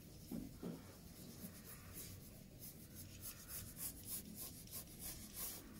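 Pencil scratching on drawing paper as construction lines are drawn: a run of short, quick strokes, several a second, starting about two seconds in.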